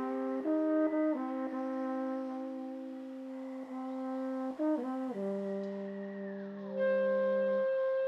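Trombone and clarinet playing slow, overlapping held notes that move in pitch every second or so, layered by live electronic reverb and delay; a louder, higher held note comes in about seven seconds in.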